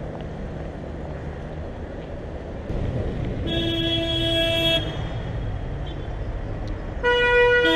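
Car horns honking in heavy traffic. One long blast comes about three and a half seconds in, and near the end two horns of different pitch sound together, over steady traffic noise.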